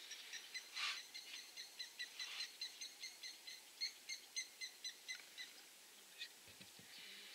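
A bird calling a long series of short, evenly spaced notes, about four a second, which stops about five and a half seconds in.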